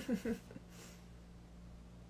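A woman's short laugh, three quick falling voice notes at the very start. After it there is only a steady low hum of room tone.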